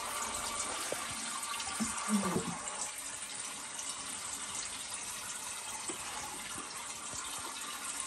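Resin Buddha tabletop water fountain running: a steady trickle of water falling into its basin. A brief low sound comes about two seconds in.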